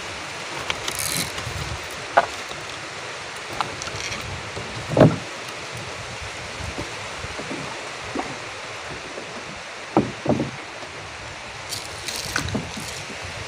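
Scattered knocks and clicks of fishing gear being handled against the planks of a small boat, the loudest about five seconds in and a pair near ten seconds, over a steady hiss of wind and river water.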